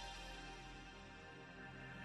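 Soft intro music of held, sustained tones, slowly growing quieter.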